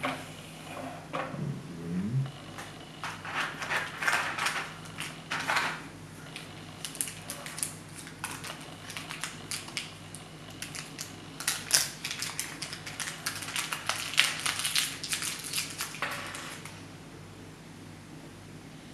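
Small plastic bag of model parts crinkling and rustling in the fingers, with many small clicks, as tiny parts are worked out of it. The crinkling stops a little before the end.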